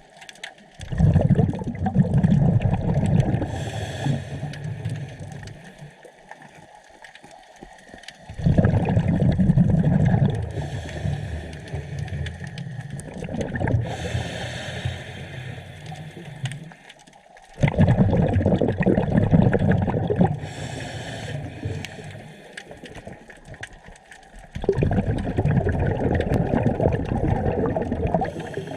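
Scuba diver breathing through a regulator underwater: four exhalations that each push out a loud, low rush of bubbles, about one every seven or eight seconds, each fading away. A short high hiss of the regulator on each inhalation comes between them.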